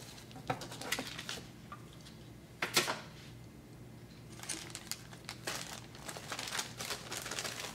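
Clear plastic parts bags crinkling and rustling as they are handled, in scattered bursts with one louder rustle about two and a half seconds in.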